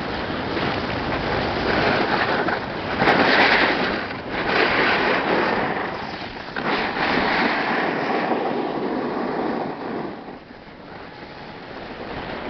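A snowboard sliding and scraping over snow, with wind rushing over the microphone, rising and falling every second or two and easing off about ten seconds in.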